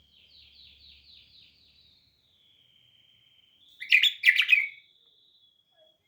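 Songbird singing: a quick trill of repeated notes, then a thin, steady whistle, then a few loud, harsh notes about four seconds in, fading to a faint high note.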